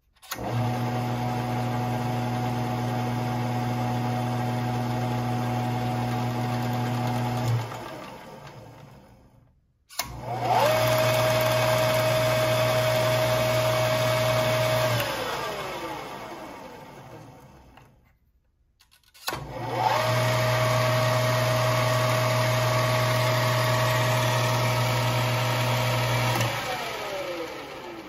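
EMCO Maximat V10-P metal lathe's motor and spindle, switched on three times with the newly wired rotary switch. Each time it runs with a steady hum for five to seven seconds, then is switched off and coasts down with a falling whine. The second and third starts spin up with a rising whine, and those two runs carry a higher steady whine than the first.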